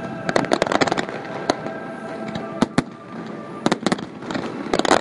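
Fireworks exploding: sharp bangs and crackles in irregular quick clusters, thickest about half a second in and again toward the end.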